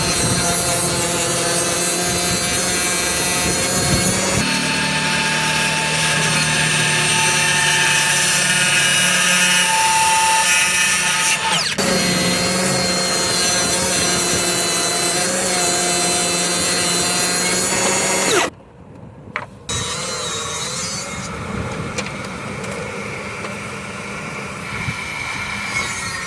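Cordless power saw running and cutting through wood siding, a steady motor whine under the cut that goes on almost without a break, with a short stop about three quarters of the way through before it runs again a little quieter.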